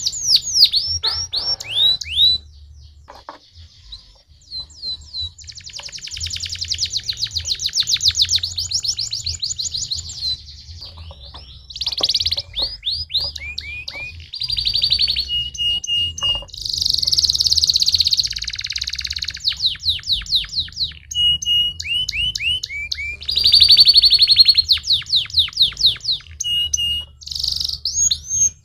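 Domestic canary singing a long song of fast rolling trills made of rapidly repeated sweeping notes, broken by a few short steady whistles and brief pauses.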